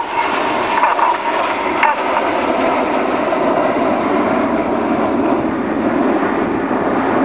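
Jet noise from the Red Arrows' BAE Hawk T1 jets flying in formation: a steady rushing sound that fills out a little in its lower part over the second half.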